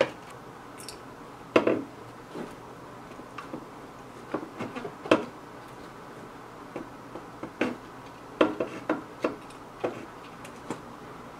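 Scattered light clicks and metallic taps as a large soldering iron and copper solder wick work the tacked-down lugs of an old multi-section can capacitor against a tube amp's metal chassis, desoldering it. The taps are irregular, with a small cluster about two-thirds of the way through.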